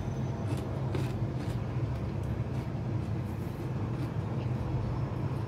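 Close-up chewing of crunchy raw cucumber: repeated crisp crunches over a steady low hum.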